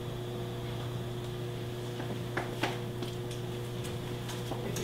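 Quiet kitchen room tone: a steady low hum, with a few faint light clicks of cookware or utensils at the stove, two about halfway through and a few more near the end.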